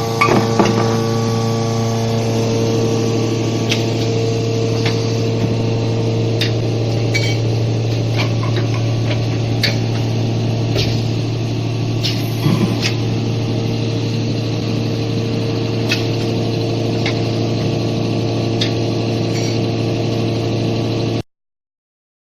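VD169B automatic vacuum nitrogen-flushing can seaming machine running: a steady motor hum with a few scattered clicks and knocks from its mechanism. The sound cuts off suddenly near the end.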